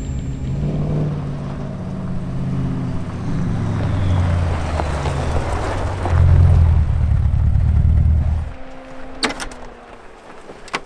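A Jeep Wrangler's 6.2-litre GM Gen V LT V8 running at low speed as the Jeep drives up a gravel road and draws close, getting louder, with tyres crunching on the gravel. The engine note stops abruptly about eight and a half seconds in, followed by a single knock.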